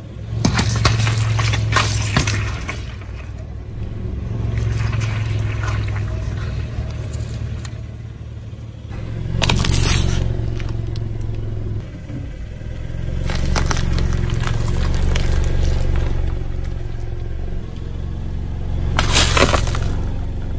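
Car tyres rolling slowly over objects and crushing them, with four bursts of crunching and cracking over the steady low sound of the engine running.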